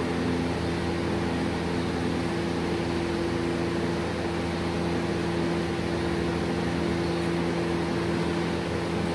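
A running machine giving a steady hum with several constant tones, unchanging throughout.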